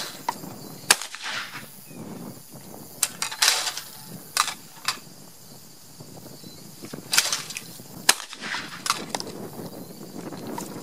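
Fabarm L4S 12-gauge gas-operated autoloading shotgun firing 1-ounce target loads at clays: two sharp shots about seven seconds apart, one about a second in and one near the end. Softer noisy bursts come between them.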